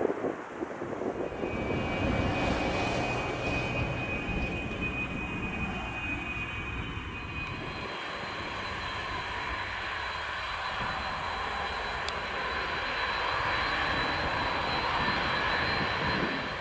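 Antonov An-124's four D-18T turbofan engines running: a steady jet roar with thin high whines over it, the whine rising higher about halfway through.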